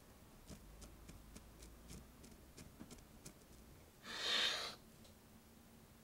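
A credit card scraping and tapping ground pepper into a line on a paper towel, about ten quick scrapes over two or three seconds. A little after four seconds in comes one hard snort through the nose, the pepper being sniffed up, the loudest sound here.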